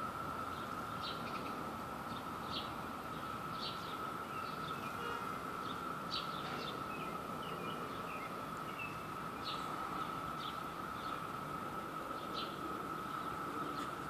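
A chorus of Brood II periodical cicadas, heard as a steady, unbroken drone from the background, with short bird chirps scattered over it.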